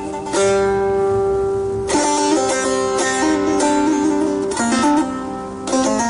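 Kopuz, a Turkic plucked lute, played solo in a free improvisation: plucked notes ringing out one after another over a steady low drone, with a quick cluster of notes shortly before a fresh strike near the end.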